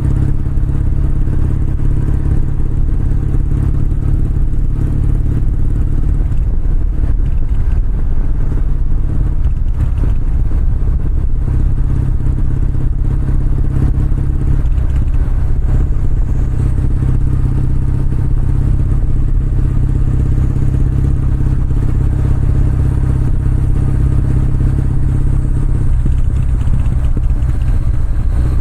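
Kawasaki W650's air-cooled parallel-twin engine and exhaust running steadily at a near-constant speed, with a slight change in note near the end.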